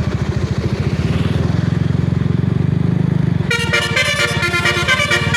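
An engine running with a fast low throb, then about three and a half seconds in a Basuri musical air horn on a bus breaks in, playing a quick tune of short bright notes over the engine.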